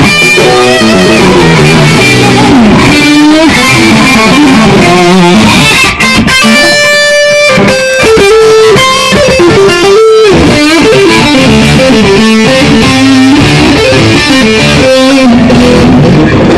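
Gibson Les Paul Studio Faded electric guitar played loud: fast picked lead runs of quickly changing notes, with one note held for about a second around six and a half seconds in.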